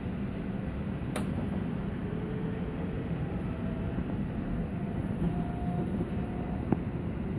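Cabin of a Bombardier C20 metro train running and gathering speed: a steady rumble of wheels on track, with a faint rising whine from the traction motors. There is one sharp click about a second in.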